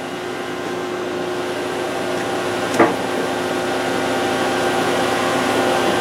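Steady mechanical hum and whir of machinery, slowly getting a little louder, with one short knock about halfway through.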